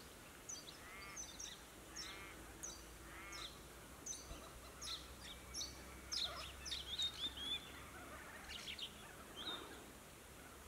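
Several wild birds calling: many short, high chirps and whistles throughout, with a harsher call repeated about four times in the first few seconds.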